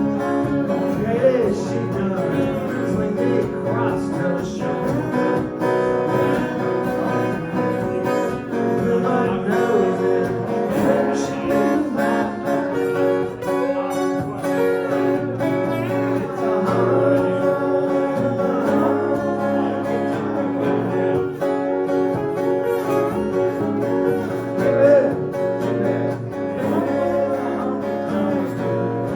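Country-style music with strummed acoustic guitar, playing steadily.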